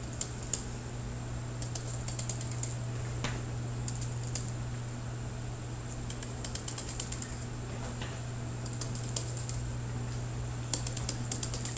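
A pen stylus tapping on a drawing tablet in several quick runs of light clicks, as dashed lines are drawn stroke by stroke, over a steady low hum.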